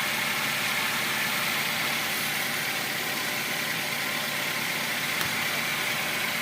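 Toyota Avanza engine idling steadily.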